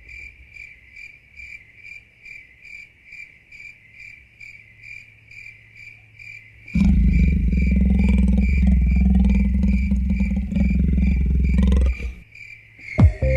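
Opening of an electronic music track: a high, cricket-like chirp pulsing about three times a second, joined about seven seconds in by a loud low rumble that stops near twelve seconds. Drum beats come in near the end.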